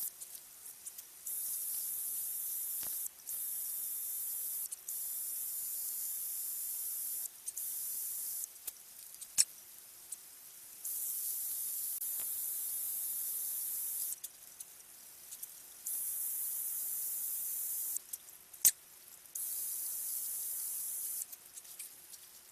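A twist drill bit meant for metal boring into hard wood in bursts of a few seconds each, a high-pitched hiss that starts and stops about seven times. Two sharp clicks stand out, one near the middle and one about three-quarters of the way through.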